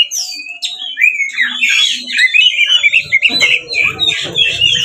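Oriental magpie-robin in full, aggressive song: a fast, unbroken run of varied whistles and chattering notes that glide up and down. About three seconds in, a lower rough noise joins underneath.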